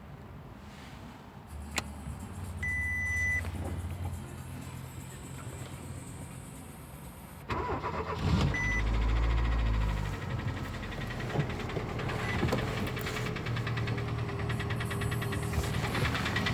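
Daewoo Lanos engine being started: after a click and a short beep, it catches suddenly about seven and a half seconds in and settles into idle. The idle carries a fast ticking from the "AE" hydraulic lifters, the sign of lifters that are not holding up.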